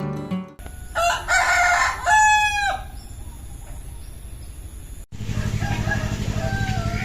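A rooster crowing once, starting about a second in and lasting under two seconds. After a sudden cut near the end, a steady low drone with faint chirps over it.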